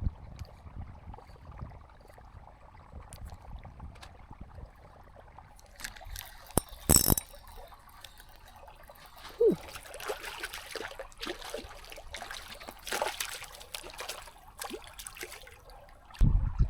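Water splashing and trickling in irregular bursts for the second half, with a couple of sharp knocks a little past halfway and a heavy thump near the end.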